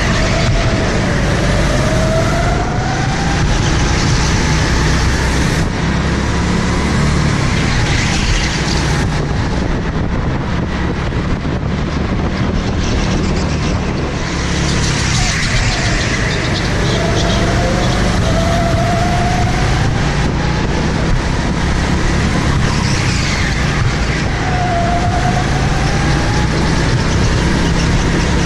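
Indoor go-kart engine running hard, heard from on board the kart, its pitch climbing several times as it accelerates out of the corners over a steady low rumble.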